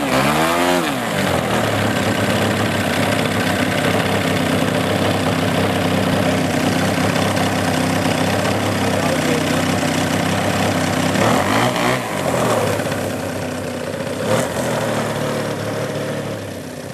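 Engine of a giant-scale Lembeck Ultimate 10-300S model aerobatic biplane catching and revving briefly, then settling into a steady idle. About two-thirds of the way through, the pitch briefly drops and rises again.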